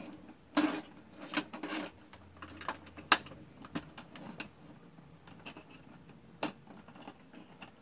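Electrical wires being handled and pulled inside plastic utility boxes: scattered rustling and small clicks of wire against plastic, with two sharper clicks about three seconds and six and a half seconds in.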